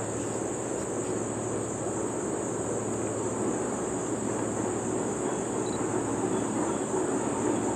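Insects shrilling in a steady high-pitched drone, over a low rumble from an approaching train that slowly grows louder.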